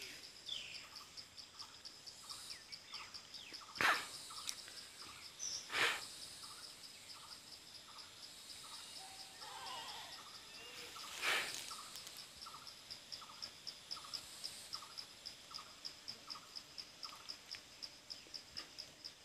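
Insects chirping in a steady, high-pitched pulsing call, several pulses a second, with a few faint bird chirps. Three short, loud bumps come about 4, 6 and 11 seconds in.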